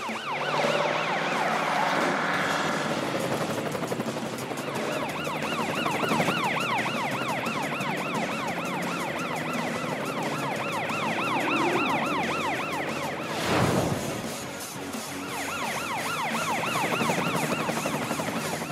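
Cartoon emergency-vehicle sirens, several layered, warbling up and down quickly. They start in earnest a few seconds in, break for a brief whoosh about two-thirds of the way through, then resume.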